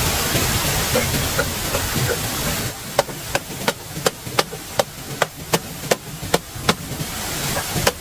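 Steady rushing noise that cuts off abruptly, followed by a tool striking wood in a steady rhythm of about three blows a second, each blow with a short ringing knock.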